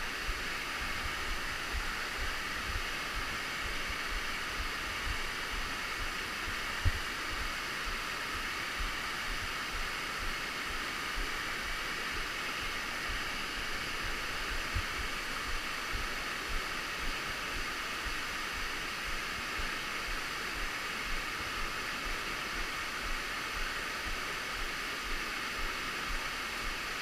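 Steady rush of a waterfall's falling water, with small low bumps on the camera microphone and one sharper thump about seven seconds in.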